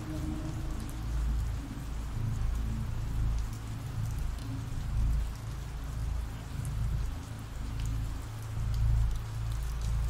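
Ambient rain sound effect: steady rain falling, with a low rumble underneath that swells and fades several times.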